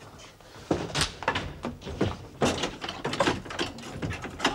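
A room being searched in a hurry: a run of irregular knocks and thuds, starting about a second in, as a mattress is heaved up and a wooden wardrobe's doors and contents are yanked about.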